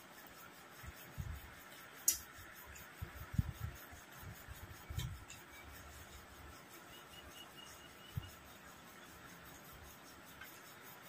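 Quiet eating sounds at a table while two people eat rice and fish by hand from plastic plates: a few soft low thumps and one sharp click about two seconds in.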